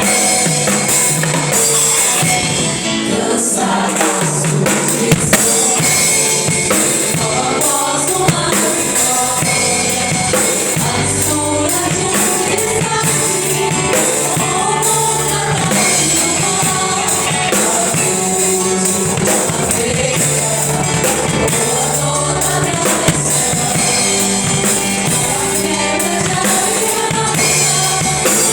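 Gospel worship music with a group of voices singing over a band with a drum kit, playing steadily throughout.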